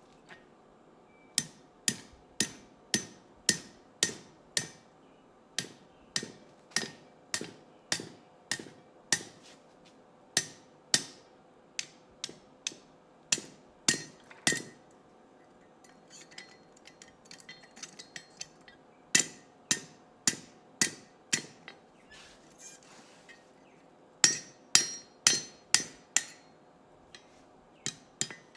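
Blacksmith's hand hammer striking hot steel on an anvil to bend and shape the stem of a forged leaf hook, about two blows a second with the anvil ringing under them. The blows come in runs broken by short pauses, with lighter, quicker taps in the middle.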